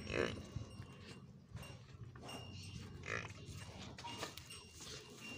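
A Murrah buffalo calf biting and chewing green fodder held out to it, with the leaves rustling. A few short louder bursts come just after the start and again two to three seconds in.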